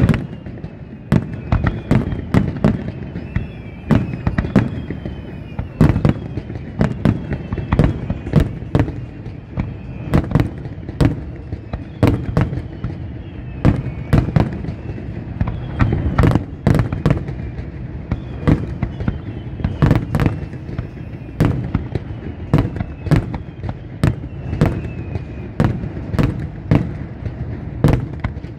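Fireworks display: an irregular, rapid run of loud bangs, at times several a second, over a continuous low rumble, with faint short falling whistle tones between the bangs.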